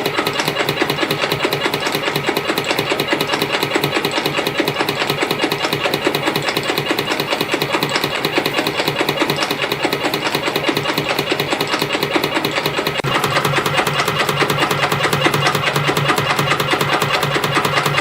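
YHM CF-310 CNC compression spring coiling machine running, feeding and coiling 0.4 mm wire into conical springs, with a rapid, even mechanical clatter. The sound changes about 13 seconds in.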